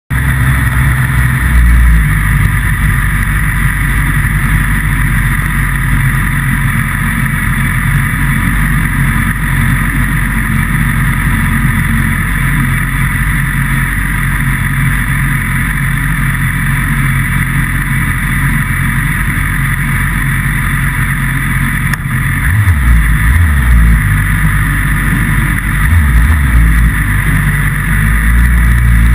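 Motorcycle engine idling steadily, close up from on the bike, with a few short throttle blips about three-quarters of the way through and again near the end.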